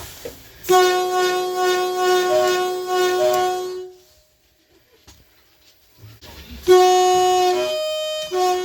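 Two-tone train horn sounding twice. The first is a long blast of about three seconds on the low note. After a pause, a second blast steps from the low note up to the high note and back down.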